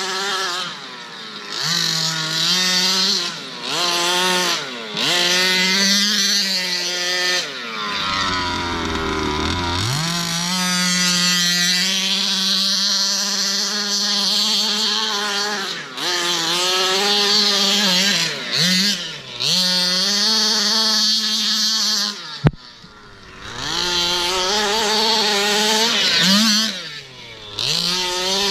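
Small two-stroke gas engine of a 1/5-scale HPI Baja 5B RC buggy, revving hard and dropping back over and over as the throttle is worked. A sharp crack rings out about three-quarters of the way through.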